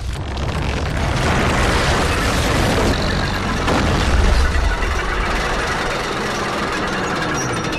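Deep, dense rumbling sound effect that swells over the first second and peaks in a low boom about four seconds in, then holds on as a steady rumble.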